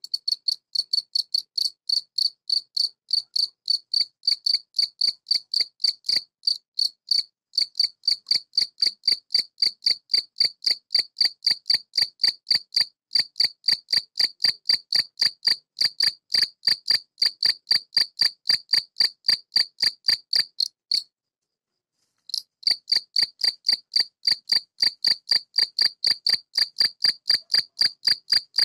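Male European field cricket (Gryllus campestris) stridulating, rubbing its raised forewings together: a high-pitched chirp repeated evenly about three to four times a second. This is the calling song males use to attract females. The chirping breaks off for about a second roughly three-quarters of the way through, then resumes.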